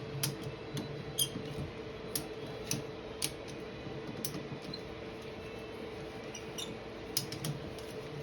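Irregular light clicks and ticks from ratchet straps being worked by hand, their handles, levers and hooks, over a steady background hum.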